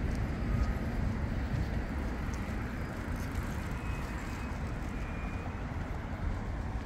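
Steady city street traffic noise: vehicles running along the road as a low, even hum with no single pass standing out.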